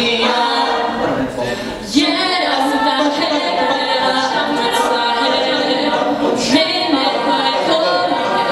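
A mixed-voice a cappella group singing in harmony behind a lead singer on a hand-held microphone. The sound thins out briefly a little past a second in, then the full group comes back in sharply about two seconds in.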